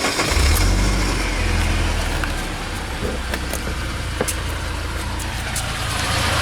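UAZ Patriot engine just started and settling to a steady idle, slightly louder for the first second or two. It is running with the rattling knock 'дыр-дыр-дыр' from underneath around the gearbox that the owner hears at idle and cannot identify.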